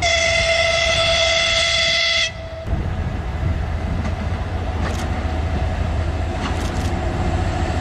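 Train horn sounding one long blast of about two seconds. It cuts off, leaving the steady low rumble of the train running, with a few faint clicks.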